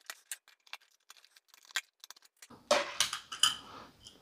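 Faint scattered clicks of a Phillips screwdriver backing out the tight screws of a plastic battery cover on a digital kitchen scale, then, about two and a half seconds in, a louder clatter with several sharp knocks as the loosened cover and small metal screws are handled and lifted off.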